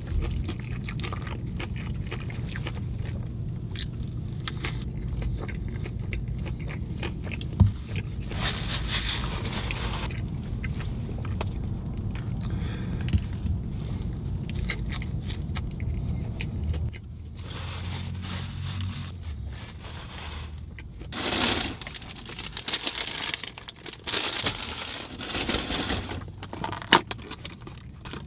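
Close-up eating sounds: a man biting and chewing a fast-food burger, with crunching and crackling handling noises and a sharp click. Under it a low steady hum runs and drops away about two-thirds of the way through.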